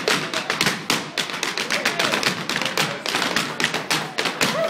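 Irish step dancers' hard shoes rapidly tapping and stamping on a wooden floor, several dancers' beats overlapping in a dense, uneven stream.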